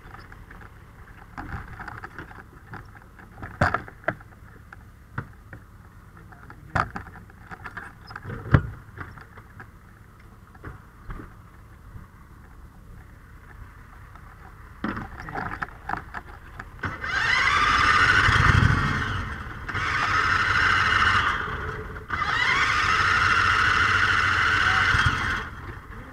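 Brush truck's fire pump and engine running steadily, with scattered knocks and clunks as valves and fittings on the pump panel are worked. About 17 seconds in it comes up loud and high, rising in pitch, for two long spells with a short dip between them.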